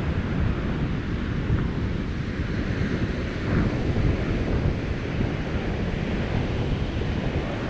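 Wind buffeting the microphone with a steady low rumble, over the wash of surf breaking on the beach.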